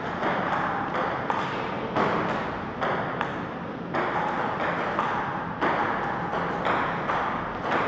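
Table tennis rally: the ball clicking off the paddles and bouncing on the table in a quick, even rhythm, about three hits a second.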